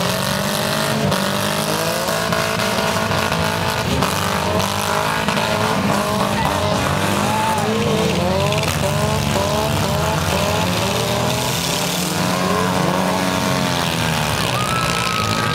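Many front-wheel-drive demolition derby cars revving their engines at once, with tyres squealing, making a dense continuous racket of overlapping rising and falling engine notes. A steady high note comes in near the end.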